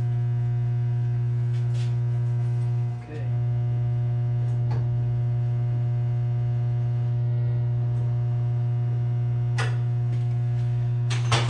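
Steady, loud electrical hum of two 150 kVA transformers: a low drone with a ladder of evenly spaced higher overtones. A few short clicks sound over it, the strongest near the end.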